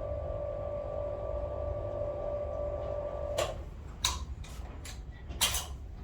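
Tubular blind motor running the blind down with a steady hum, which stops about three and a half seconds in. Several sharp clicks and knocks follow.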